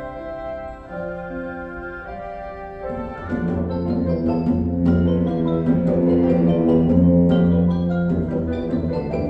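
A symphonic wind band playing: sustained chords in the winds, growing louder and fuller about three seconds in, with mallet percussion adding many quick struck notes above.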